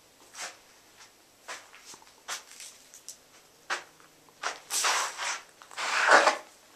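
Footsteps and rustling on dirt and leaf litter: irregular short scuffs, ending in two longer, louder scrapes about five and six seconds in.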